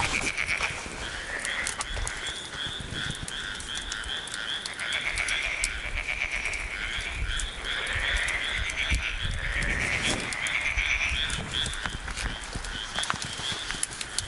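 Frogs calling in rhythmic trains of croaks, about four pulses a second, repeating one after another, with faint scattered clicks underneath.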